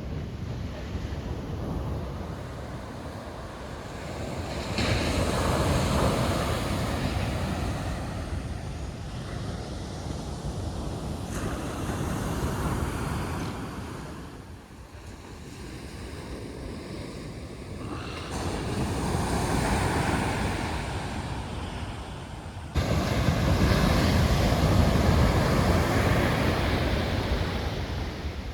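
Surf on a steep shore-break beach: big waves breaking and washing up in several swells, with wind buffeting the microphone. The last swell comes in suddenly and is the loudest.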